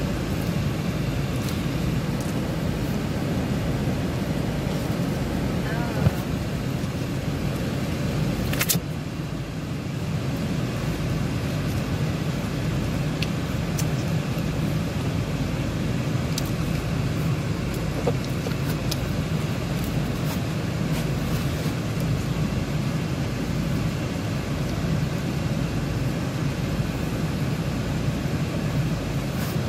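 Steady running noise inside a car's cabin, the air conditioning blowing with the engine on. A knock comes about six seconds in and a sharp click a few seconds later.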